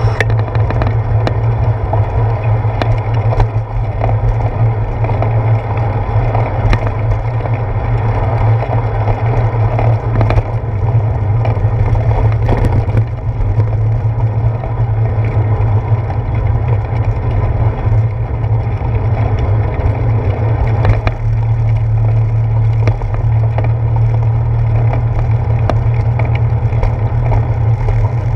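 Bicycle riding along a wet paved trail, heard from a handlebar-mounted camera: steady low rumble of wind and road vibration with tyre noise on the wet surface, and scattered short knocks and rattles from bumps.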